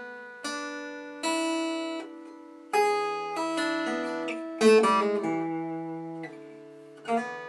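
Guitar played slowly, one plucked note at a time: a short blues phrase of about eight notes, each left ringing, with a slide up the G string and a pull-off on the high E.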